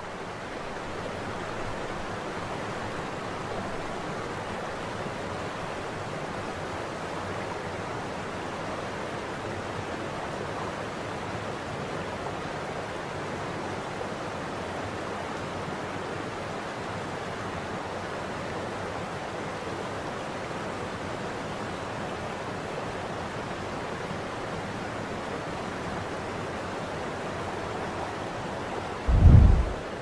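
Steady rushing noise of a waterfall. A short, deep thump about a second before the end is the loudest sound.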